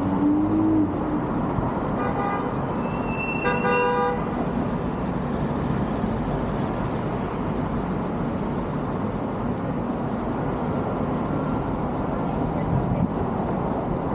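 Steady downtown street traffic noise from passing cars, with a car horn sounding twice: a short toot about two seconds in and a longer honk about three and a half seconds in.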